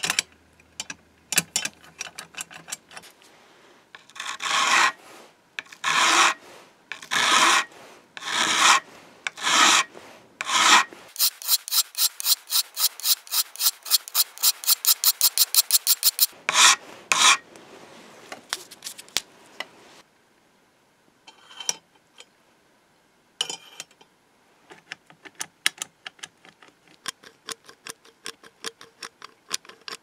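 Hand file rasping across a steel key bit clamped in a bench vise. First come long strokes about one a second, then a quick run of short strokes about five or six a second, then a couple more long strokes, and lighter scattered scrapes and ticks in the second half.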